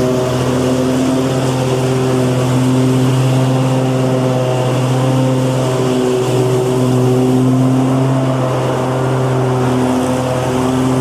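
Lawn mower engine running steadily at a constant speed, its pitch wavering slightly now and then.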